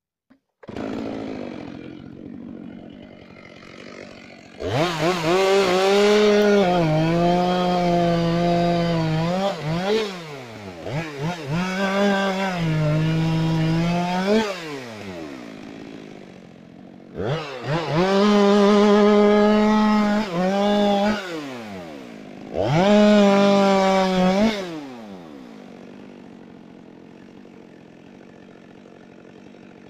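Two-stroke chainsaw engine taken to full throttle four times, each time for a few seconds, and dropping back to idle between bursts and after the last.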